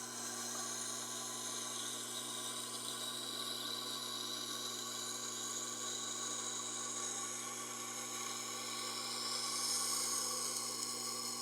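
Elmax knife blade held against a spinning CBN wheel on a Tormek T-8, grinding with a steady hiss over the machine's hum, to raise a burr along the 18-degree bevel. The grinding grows a little louder near the end and then stops suddenly as the blade comes off the wheel.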